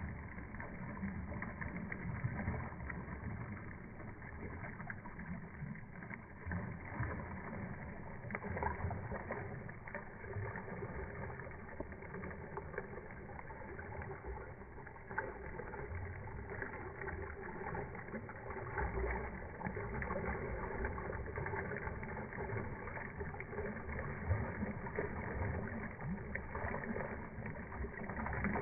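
Shallow floodwater rushing steadily across pavement, churning around wooden posts.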